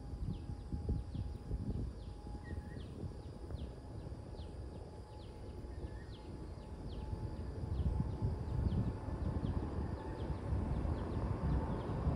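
Distant airliner jet engines at takeoff power, a roar that builds from about eight seconds in as the aircraft rolls down the runway. Wind rumbles on the phone microphone throughout, and a high, falling chirp repeats about twice a second.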